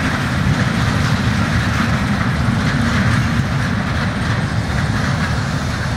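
Open freight wagons loaded with ballast rolling past, a steady rumble of wheels on rail with a clickety-clack over the joints, as the last wagons of the train go by.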